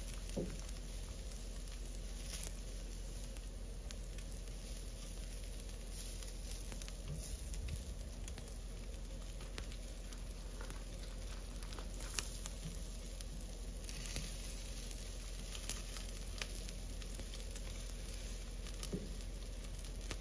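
Chicken drumsticks sizzling on the grate of a charcoal grill over hot coals: a steady sizzle with scattered small crackles and pops.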